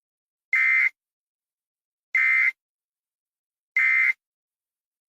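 Emergency Alert System end-of-message signal: three short, identical electronic data bursts at a high pitch, evenly spaced about a second and a half apart, marking the end of the alert.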